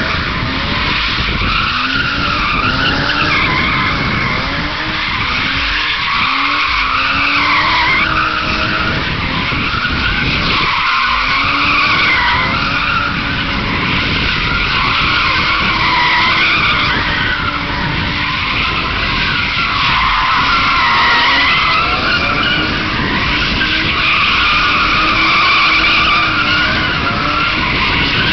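BMW E36 325i's straight-six held at high revs that rise and fall, with the rear tyres squealing continuously as they spin and slide through drift circles. The squeal wavers up and down in pitch with the slides.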